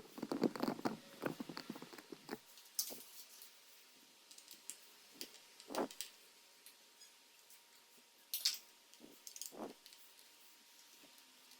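Irregular small clicks, taps and knocks of hands handling a laptop and its parts, with a quick flurry of clicks at the start and a few louder single knocks later.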